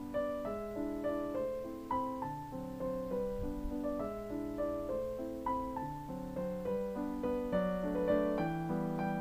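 Background piano music: a gentle melody of successive notes over lower sustained notes.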